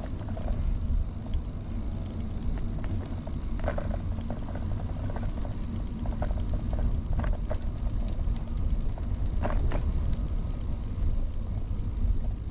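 Early-1970s Peugeot UJ-10 ten-speed bicycle rolling along, with a steady low rumble from the tyres and air, and scattered clicks and rattles from the bike several times.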